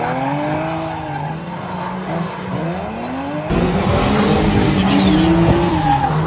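Drift car engine revving up and down over and over, its pitch climbing and dropping, with tyre squeal from the car sliding. About three and a half seconds in the sound switches abruptly to a louder, deeper engine rumble.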